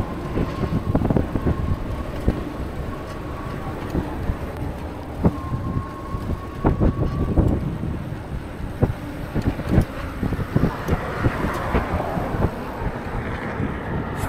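Wind buffeting an action camera's unshielded microphone while riding a bike on a wet road: a constant low rumble with frequent gusty thumps. A thin steady whine comes and goes twice in the first half, and a hiss builds near the end.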